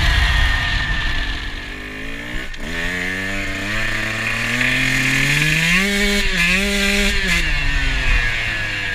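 KTM 125 two-stroke dirt bike engine being ridden. The revs sag at first, then after an abrupt break about two and a half seconds in they climb steadily in pitch, with short dips near the end as the throttle is rolled off and back on, and wind noise from riding.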